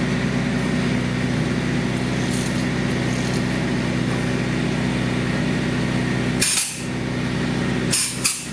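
Steady drone of the engine-driven polyurethane foam injection equipment running during slab lifting, with short hisses about six and a half and eight seconds in.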